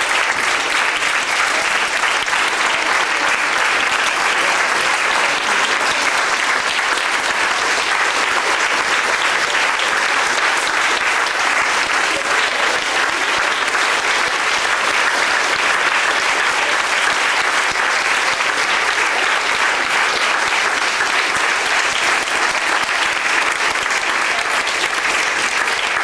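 Theatre audience applauding: a long, steady round of clapping.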